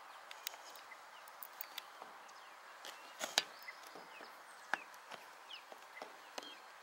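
Early-morning lakeside ambience: short bird chirps and sharp clicks scattered over a steady faint hiss, the loudest click a little over three seconds in.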